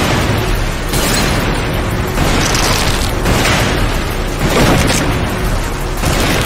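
Cartoon lightning-strike sound effects: a rapid string of loud thunder cracks and booms, a new crash about every second.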